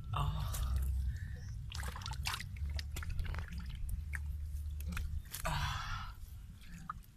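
Hands groping and scooping fish out of a muddy, water-filled hole: short wet splashes and squelches of water and mud, about three or four bursts, with scattered small slaps and clicks, over a steady low rumble.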